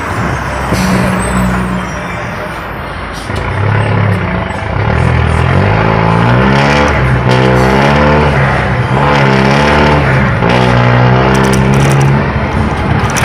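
Beccar Urbus bus's diesel engine running, its pitch rising and falling several times in the second half as the engine is revved.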